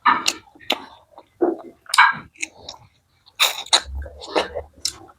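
Close-miked eating sounds: chewing with a run of sharp wet mouth clicks and smacks, several a second.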